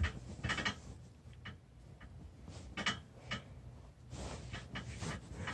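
Bedding rustling in irregular bursts as someone tosses and turns under a comforter, with a soft bump at the very start.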